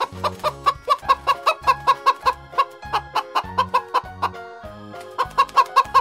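Chickens clucking in quick, short calls, several a second, over a children's background music track with a steady bass beat.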